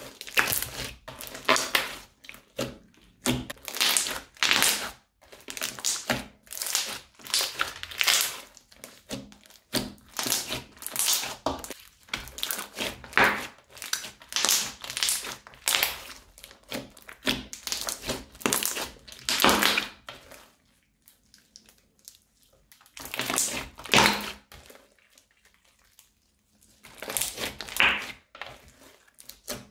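Red crunchy slime being squeezed, stretched and kneaded by hand, giving quick repeated crunching and crackling bursts. There are short pauses in the last third.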